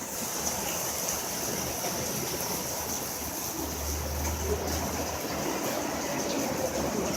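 Very heavy rain pouring down, a steady, even hiss of water, with a low rumble for a second or so midway.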